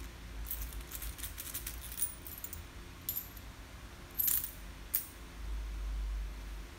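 Coins dropped into a disposable plastic cup, clinking: a quick run of clinks about half a second in, then single clinks about a second apart.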